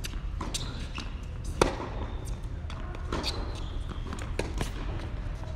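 Tennis ball being hit back and forth with racquets and bouncing on an indoor hard court during a rally: a series of sharp pops, the loudest about one and a half seconds in, over a steady low hum.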